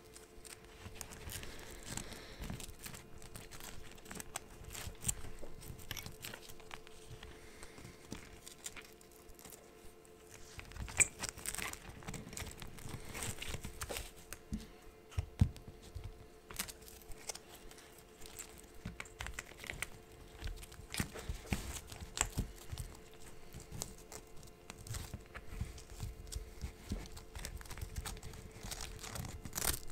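Battery strap being threaded through and fitted to a cinewhoop drone frame: irregular rubbing and crinkling of the strap, with scattered light clicks of small plastic and carbon parts being handled.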